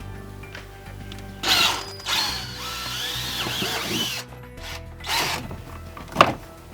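Cordless drill with a 3/8-inch bit running in several short bursts, boring mounting holes, over background music.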